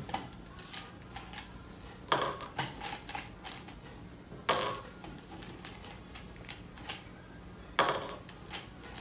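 Mike and Ike candies clattering as they are picked out of a plastic cup and dropped into a small glass jar, in three short bursts of clicks.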